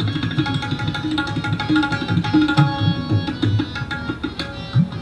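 Tabla played very fast: a rela of rapid, even strokes imitating a horse's gallop. The bass drum (bayan) is struck with pitch bends, one glide rising near the end, under the ringing tuned tone of the treble drum.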